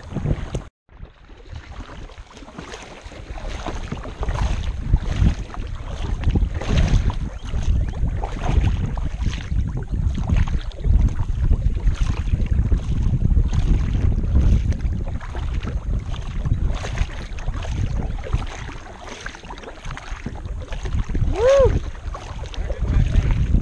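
Kayak paddle strokes dipping and splashing in river water, a steady rhythm of about one stroke a second, with wind buffeting the microphone. A short pitched call sounds once near the end.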